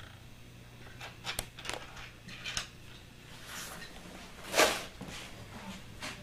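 Light knocks and clatters from a kitten playing among videotape boxes on a wooden floor, with one louder, short rushing noise about two-thirds of the way through, over a steady low hum.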